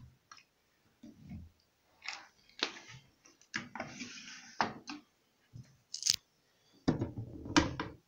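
Handling noises of plastic laundry-detergent bottles and fabric: scattered rustling and sharp plastic clicks, with a couple of heavier knocks near the end as bottles are moved and set down.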